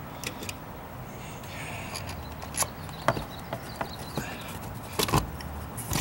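Scattered light clicks and knocks of an outdoor electrical box and its outlet cover being handled and fitted, over a low steady background rumble.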